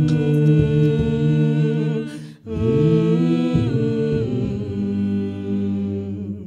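Three-voice a cappella group singing long, wordless held chords, the voices sliding up into each chord. The singing breaks off briefly about two and a half seconds in, then a second long chord is held and fades out just before the end.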